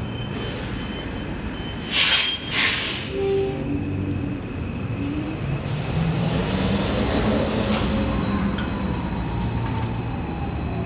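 New Flyer XT60 articulated electric trolleybus pulling away from a stop. Air hisses loudly twice about two seconds in, then the electric traction motor whines with a slowly rising pitch as the bus gathers speed: the faint racecar-like sound this bus makes while moving.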